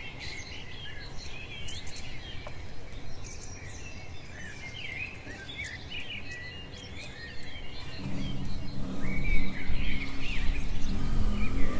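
Small birds chirping and twittering busily, many quick high chirps overlapping. About eight seconds in a louder low rumble joins them.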